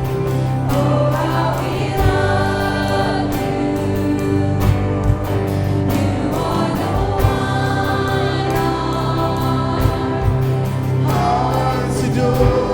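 Live church worship band playing a contemporary worship song, with bass, drum hits and voices singing.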